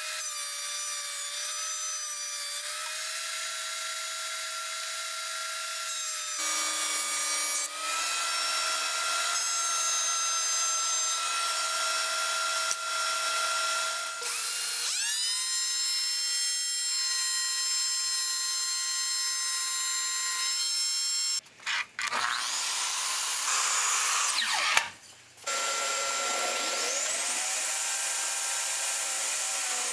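Benchtop thickness planer with a shop vacuum attached, running in several steady stretches of machine whine as rough-sawn red cedar boards are planed smooth. Near the end, after two brief breaks, a table saw runs up with a rising whine and rips a board.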